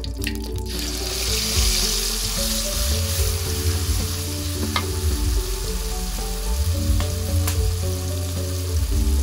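Ground spice paste sizzling in hot oil in an aluminium wok, the sizzle starting about a second in as the paste goes into the oil, with a metal spatula stirring and clinking against the pan a few times.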